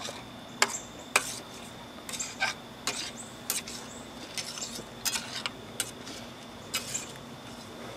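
Slotted spatula scraping and clinking against a metal frying pan as an egg and milk mixture is stirred, in irregular taps and short scrapes.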